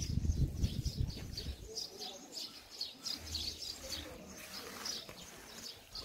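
Small birds chirping over and over, with a low rumble in the first couple of seconds.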